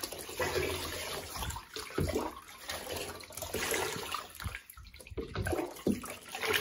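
Water poured from a cup over a puppy standing in a shallow bathtub, splashing and trickling unevenly as the coat is rinsed.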